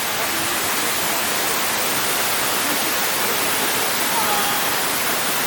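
A waterfall rushing: a steady, loud wash of falling and running water, with faint voices underneath about four seconds in.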